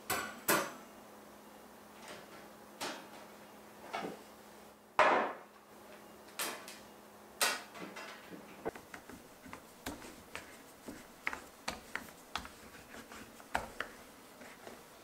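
Metal baking trays and a wire rack being handled and set down on a wooden table: a string of separate knocks and clanks, the loudest about five seconds in, followed by lighter, quicker clicks.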